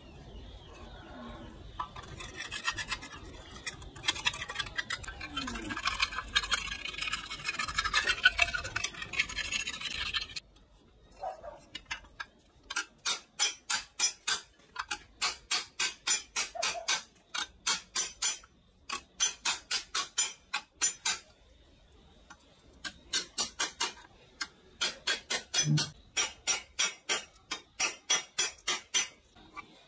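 Hand rubbing on an engine part: about ten seconds of continuous scrubbing, then sets of even back-and-forth strokes at two to three a second, separated by short pauses.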